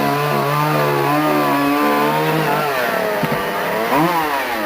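Chainsaw engine running at high speed with a steady note. It sags a little about three seconds in, then gives a quick rev up and down near the end before winding down.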